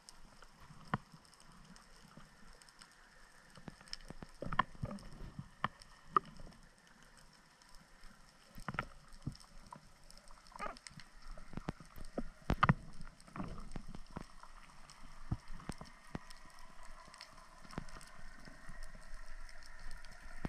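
Faint underwater ambience picked up through a camera's waterproof housing: a low hiss with scattered short clicks and knocks.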